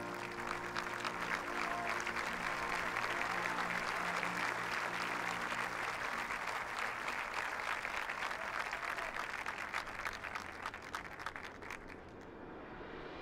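Large stadium crowd applauding and cheering over a drum and bugle corps' brass holding low sustained chords. The applause swells in the first second and dies away near the end.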